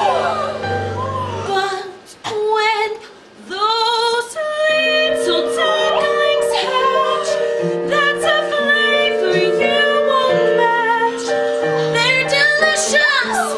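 A song from a stage musical: a woman singing with instrumental accompaniment, with a short lull about two seconds in.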